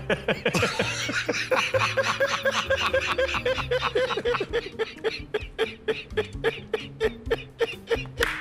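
Long, hearty laughter: an unbroken run of short, high-pitched laughing pulses, about six a second.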